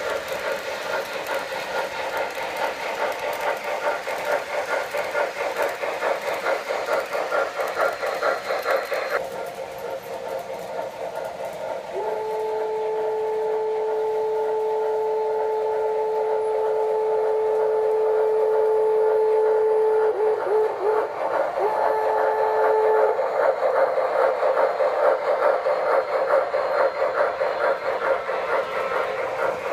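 O scale model train running on its track with a fast, steady clatter of wheels and motor. About twelve seconds in, the locomotive's electronic sound system gives one long steady signal blast, then a couple of short toots and another blast.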